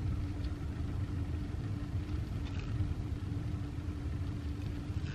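Steady low rumble with a constant low hum running through it.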